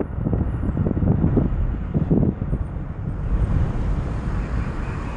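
A car driving, heard from inside: low road rumble with gusty wind buffeting on the microphone, easing slightly after about three seconds.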